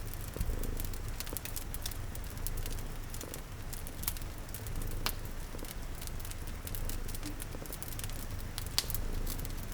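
Fireplace crackling with irregular sharp pops, over a steady hiss of rain and the low rumble of a cat purring.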